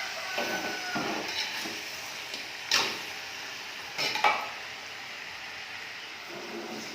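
Pieces of village chicken being stirred in a pan of sautéed spices, with a steady frying sizzle. There are two sharp clanks of the utensil against the pot, about three and four seconds in.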